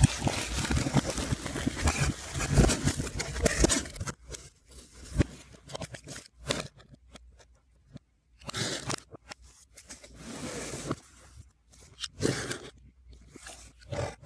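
Album packaging being handled, crinkling and tearing, played backwards. A dense run of crackling for about the first four seconds gives way to short separate bursts.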